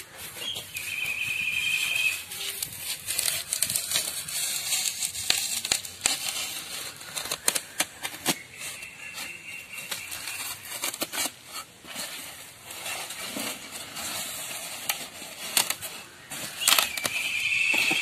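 Utility knife blade being drawn through a thermocol (expanded polystyrene foam) sheet: scratchy crackling and scraping, with a few short high squeaks.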